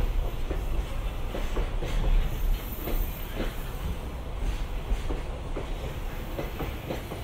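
Freight train rolling past, its wheels clicking over the rail joints every half second or so over a steady low rumble.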